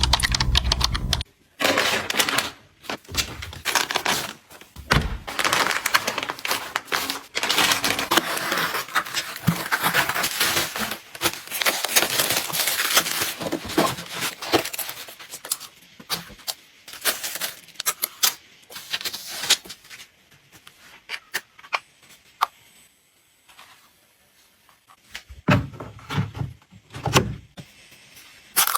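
Close-up handling of packaging and containers while restocking: rustling with frequent clicks, taps and knocks, going quieter for a few seconds a little past two-thirds through, then a few dull thumps near the end.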